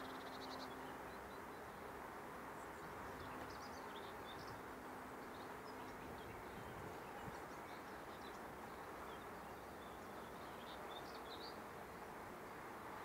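Faint steady hum of honeybees around an open hive, with a bee's buzz passing near in the first second and again from about 3 to 6 seconds in. Scattered faint bird chirps sit above it.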